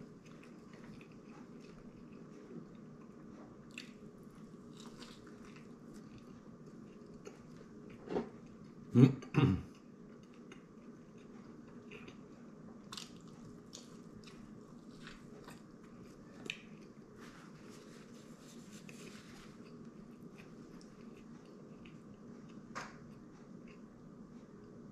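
A man biting and chewing a bacon cheeseburger, with soft mouth sounds and scattered small clicks. About eight to nine and a half seconds in come three louder thumps.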